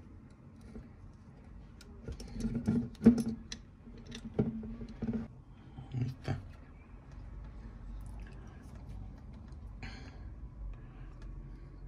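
Knocks, clicks and rubbing from a laser engraver's metal module and its brass air-assist nozzle being handled. Most of the sounds come in a cluster from about two to six seconds in, the loudest knock near three seconds.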